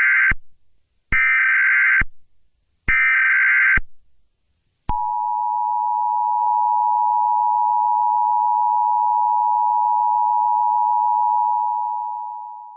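Emergency Alert System tones. Three harsh, buzzy data-tone bursts of about a second each come first, then from about five seconds in the steady two-tone EAS attention signal, which fades out at the end.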